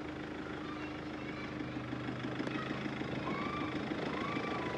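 Outdoor ambience: the steady low hum of an engine running under a noisy haze. A few short, high calls that rise and fall come over it about two, three and four seconds in.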